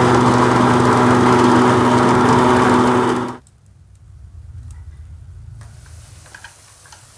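Electric noodle-making machine running with a steady motor hum as a sheet of dough feeds through its cutter. The hum cuts off abruptly about three and a half seconds in, leaving only faint ticks.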